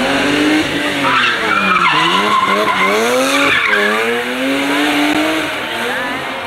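BMW M3 E30 rally car's engine at high revs through a bend, the revs falling and climbing back twice, with its tyres squealing as it slides.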